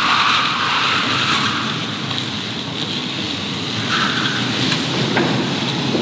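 Tesla Model 3 pulling away slowly across a concrete garage floor: an even rush of tyre noise, with no engine sound from the electric drive.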